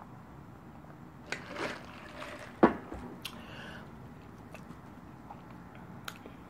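Close-up eating sounds: a sip through a drinking straw, then a sharp knock a little later, followed by faint wet mouth clicks and smacks while chewing a slider burger.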